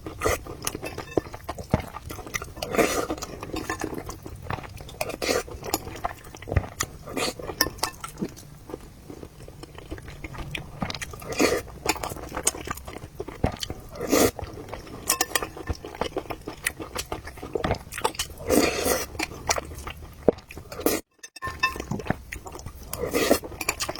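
Close-miked eating: a person chewing mouthfuls of braised pork knuckle and rice in broth, with irregular wet chewing noises and a spoon or chopsticks clicking and clinking against a bowl. The sound drops out for a moment about three-quarters of the way through.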